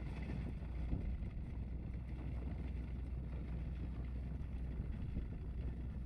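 Tractor engine and towed round baler running steadily as the rig pulls away, with wind rumbling on the microphone.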